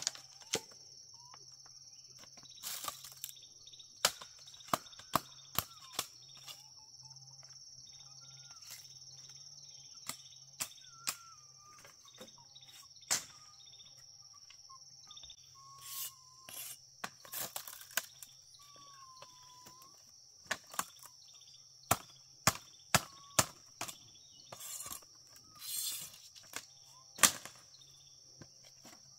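A steady high-pitched drone of insects, crickets or cicadas, with a few short bird whistles. Irregular sharp knocks and taps are the loudest sounds.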